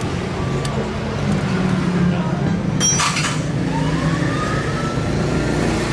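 Workshop background with a steady low hum, and a single ringing metal clink about three seconds in, typical of a tool or bolt on the scooter's body fastenings. A faint tone slowly rises and falls after it.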